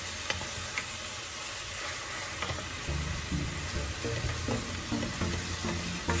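Chicken pieces sizzling as they sauté in a stainless steel pot, with a wooden spatula scraping and tapping against the pot as they are stirred.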